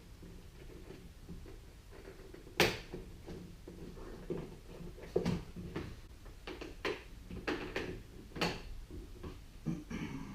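Hard plastic clicks and knocks as the rear door's interior trim panel is pried and worked loose from its clips. There is one loud snap about two and a half seconds in, then a run of smaller, irregular clicks.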